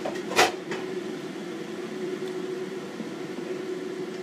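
Steady fan-like kitchen drone under a faint hiss from the pan of fuzzy melon and glass noodles cooking on the stove, with one sharp clack about half a second in.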